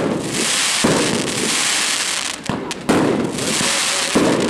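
Fireworks going off in a rapid barrage: sharp bangs about a second apart over a continuous dense crackle.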